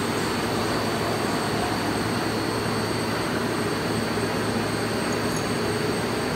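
Blown-film extrusion line with an inline two-colour flexographic printer running at speed: a steady machinery drone with a low hum and a thin, steady high whine.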